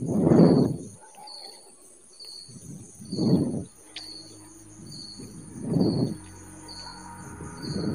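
Crickets chirping steadily in the background, about one high chirp a second over a constant high trill. Three short, louder rushes of low noise come about every two and a half seconds, with a fourth starting at the very end.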